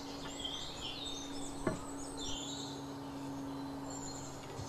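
Wild birds chirping in short calls, over a steady low hum, with one sharp click a little under two seconds in.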